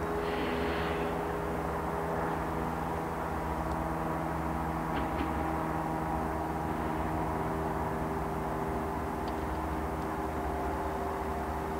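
Diesel freight locomotive engines running steadily, a low, even droning hum with no change in pitch.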